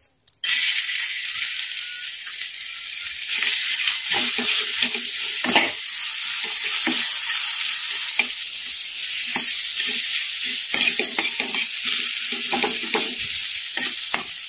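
Sliced onions and green chillies sizzling in hot oil in a kadai, the oil left from frying fish, starting suddenly as they go into the pan. A metal spatula scrapes and stirs them against the pan throughout.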